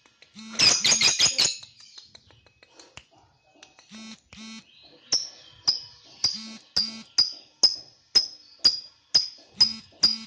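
Lovebird calling. A loud burst of harsh, high-pitched chirps comes about half a second in. From about five seconds in, a sharp chirp repeats about twice a second.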